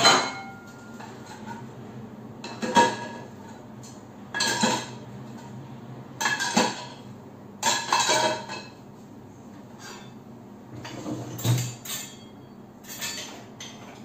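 Plates and pans clinking and clattering against each other and the dishwasher's wire lower rack as they are loaded, in about seven separate bursts.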